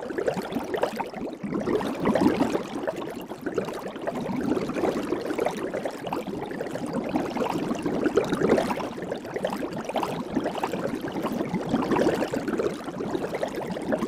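Soap bubbles crackling and popping: a dense, continuous fizz of tiny pops that swells and eases every few seconds.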